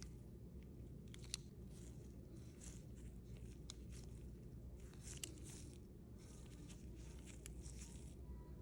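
Near silence: a steady low hum with faint rustling and two small sharp clicks, about a second in and again past the middle.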